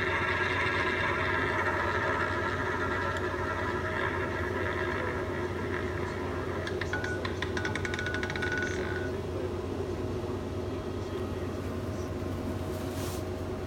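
Fixed-odds roulette terminal's wheel-spin sound effect: a steady whirring that fades over several seconds while the wheel turns, then a run of quick clicks about seven seconds in as the ball rattles into a pocket.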